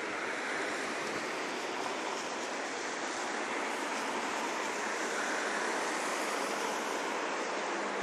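Steady rushing hiss of a rainy city street, rain and wet road noise together, slowly growing louder.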